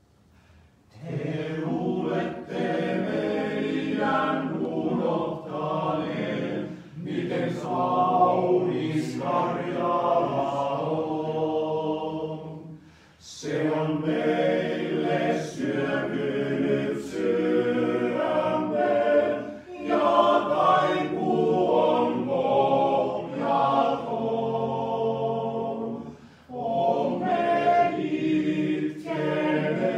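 Male voice choir singing a cappella, coming in about a second in and going on in long phrases with short breaks between them.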